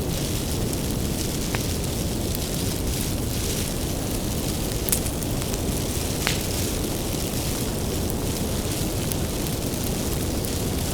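Wood fire burning with a steady low rumble and hiss, with a few sharp pops, the loudest about five seconds in.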